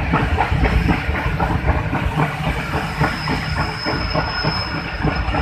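Passenger train running at speed on the track, heard from an open window of a moving coach: wheels clattering over the rails in a rapid irregular clickety-clack over a heavy rumble. A thin high whine joins about halfway through.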